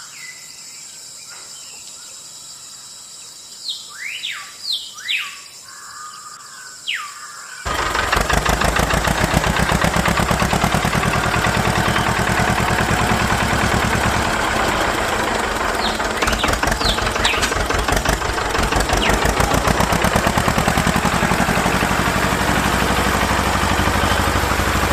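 Birds chirp for the first few seconds. About eight seconds in, a small motor-driven machine starts and runs loudly and steadily with a fast rattle to the end, with a few faint chirps behind it.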